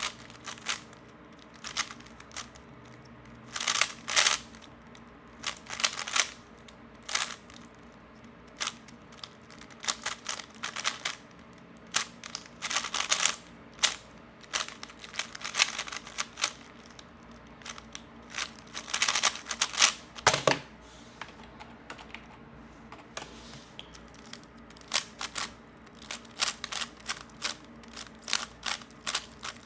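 3x3 Rubik's Cube being turned fast during speedsolves: runs of rapid plastic clicking as the layers snap round, in irregular bursts with short pauses between. There is one dull knock about two-thirds of the way through.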